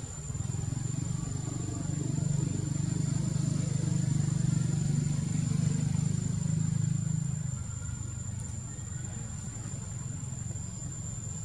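Outdoor ambience: a steady, high-pitched insect drone, with a low rumble that swells over a few seconds and then fades.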